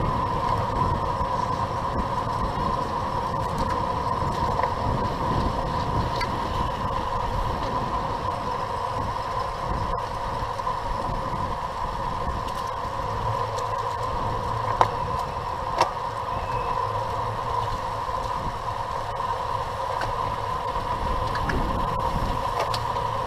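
Wind rushing over a bicycle-mounted camera's microphone as the bike rides at speed in a pack, with road and drivetrain noise and a steady high hum. Two sharp clicks come about a second apart midway.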